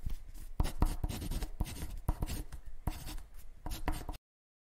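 Pencil sketching on paper: a run of quick, scratchy strokes that cuts off abruptly about four seconds in.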